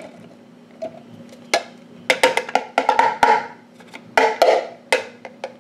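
Roasted butternut squash cubes tipped from a plastic storage container into a food processor's plastic bowl: hollow plastic knocks and clatter as the container is shaken and knocked against the bowl. The knocks come once about a second and a half in, then in two clusters, the longer one about two seconds in and the shorter one near the end.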